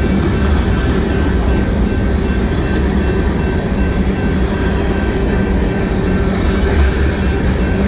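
BNSF grain train's covered hopper cars rolling past a grade crossing: a steady, loud rumble of steel wheels on the rails, with a thin steady high ringing tone over it.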